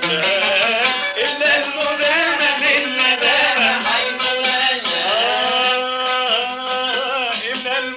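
Aleppine Arabic traditional music: a male voice sings a melismatic line that bends and glides in pitch, with an upward sweep about five seconds in, over plucked qanun. It is an early-1960s home recording, cut off in the upper treble.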